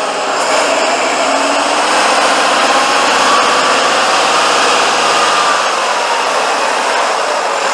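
Tatra 815 trial truck's engine working hard under heavy load as the truck crawls through deep mud, its pitch rising slowly and falling again near the end, with a faint high whine over it.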